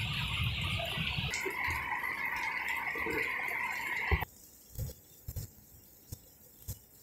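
Heavy rain falling, a steady hiss, that cuts off abruptly about four seconds in to a much quieter background with scattered faint taps.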